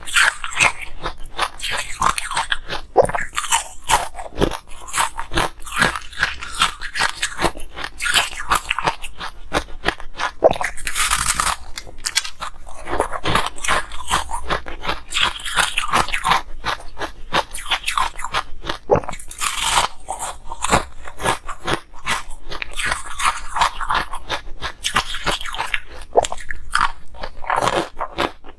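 Hard ice being bitten and chewed, close-miked: a continuous run of sharp cracking crunches, with a few louder bites breaking through now and then.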